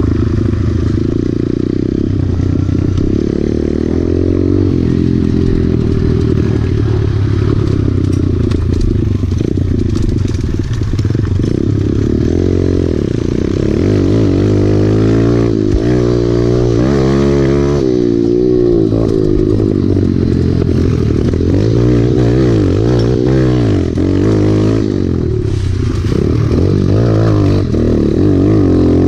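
Kawasaki KLX pit bike's small single-cylinder four-stroke engine under way, revving up and down as the rider works the throttle through the turns, its pitch rising and falling again and again.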